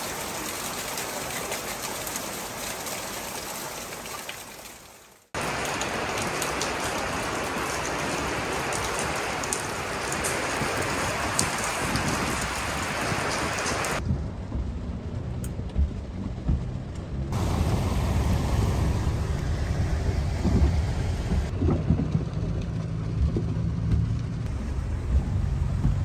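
Heavy rain pouring down onto garden plants and a pond, a steady hiss that fades and cuts out about five seconds in, then returns louder. About halfway through it changes to the low rumble inside a car driving through rain and floodwater, with rain on the windscreen.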